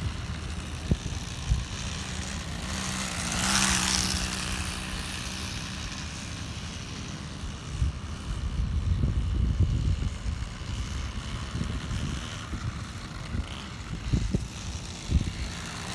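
Small gasoline engine of a homemade RC car buzzing as the car drives around. It grows louder for a moment about four seconds in, with uneven low rumbles later on.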